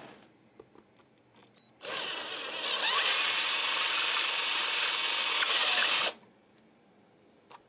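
A handheld electric power tool starts with a brief rising whine, runs steadily for about four seconds, getting louder about a second after starting, then cuts off suddenly.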